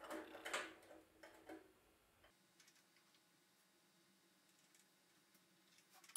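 Two brass tubes being handled on a metal workbench: a few soft knocks and scrapes in the first two seconds, then near silence with only faint ticks.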